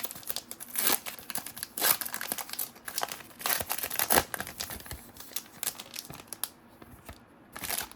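Plastic packaging crinkling and rustling as trading cards are handled, in irregular crackly bursts that thin out near the end.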